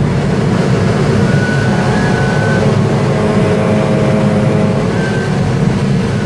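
Loud, steady rush of airflow around an engineless glider's cockpit as it flies an aerobatic loop.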